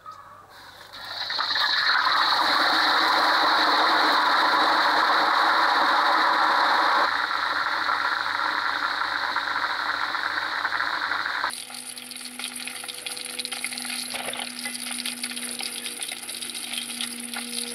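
Whole gourami deep-frying in hot oil in a wok. The oil breaks into loud, dense sizzling about a second in as the fish goes in, then drops suddenly to a quieter, crackling sizzle about two-thirds of the way through.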